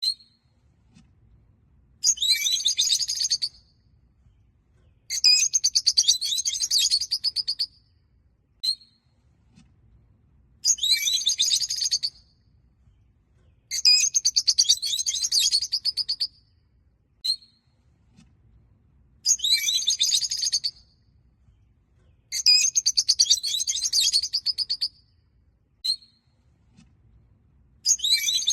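Peach-faced lovebirds calling in bouts of rapid, shrill chattering a couple of seconds long, one every few seconds, with single short chirps in some of the gaps.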